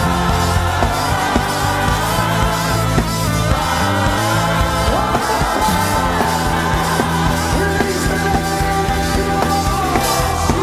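Live worship music: a band playing with a steady drum beat, with voices singing over it.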